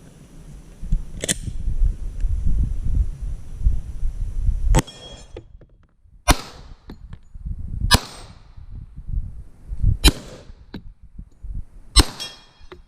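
Five shots from a 10mm handgun firing handloaded rounds, spaced about one and a half to two seconds apart, each with a short echo. A single sharp click comes about a second in, before the first shot.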